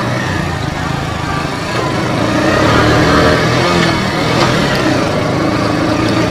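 Bajaj Boxer 100 motorcycle engine running steadily under way, with wind and road noise over it. The engine rises a little about two seconds in.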